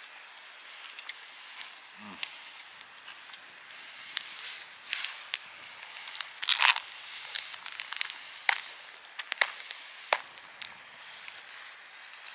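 Small wood campfire crackling: irregular sharp pops and clicks over a faint hiss, a few of them louder about six and a half and eight and a half seconds in.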